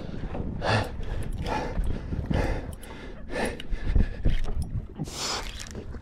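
A man breathing hard, about one loud breath a second, from the strain of reeling in a big fish on a spinning rod, over a steady low rumble of wind and sea.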